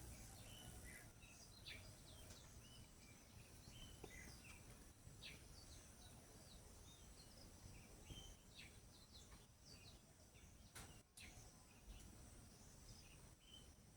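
Faint bird chirps, many short calls scattered throughout, over a steady high-pitched insect trill. A brief crackle comes about eleven seconds in.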